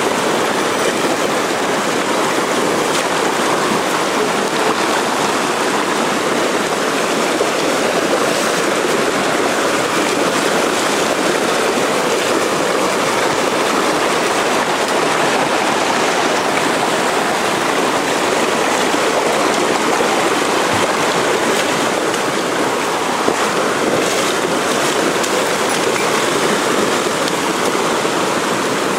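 Mountain stream rushing and splashing over rocks, a steady loud water noise.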